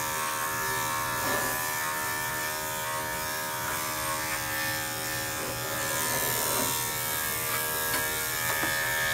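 Corded electric dog clippers running at a steady hum while shaving a matted coat down close to the skin.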